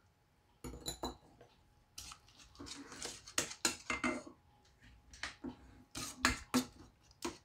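Stainless steel spoon scraping and clinking against a stainless steel pot and a plate, in irregular strokes starting about a second in, as mashed star gooseberry pulp in sugar syrup is scraped into the pot and stirred.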